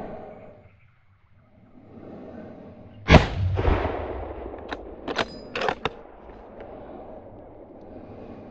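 A single rifle shot about three seconds in, its report echoing away over open country. A couple of seconds later comes a quick run of sharp metallic clicks as the rifle's action is worked to chamber the next round.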